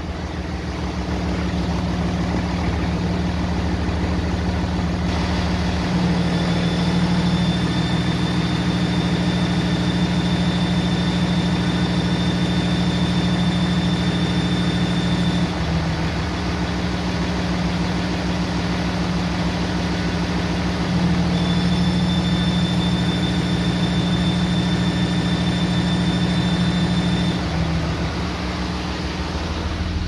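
6.7 L Cummins diesel idling; twice the exhaust brake comes on, changing the engine note and bringing in a thin high-pitched squeal that holds for several seconds before cutting off. The squeal with the exhaust brake on at idle is a fault that the mechanic suspects is an exhaust leak.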